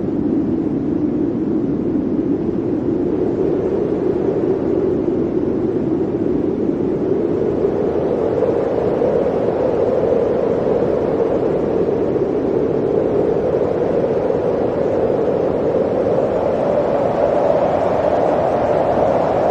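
Blizzard wind blowing steadily, a loud rushing noise with a hollow tone that slowly rises in pitch.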